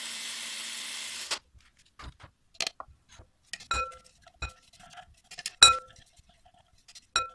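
Electric hand-blender chopper motor running for about a second and a half, grinding lemon peel with sugar, then cutting off. Then several sharp clinks with a short ring as the chopper bowl is knocked against a glass mixing bowl to empty out the ground peel, the loudest a little past the middle.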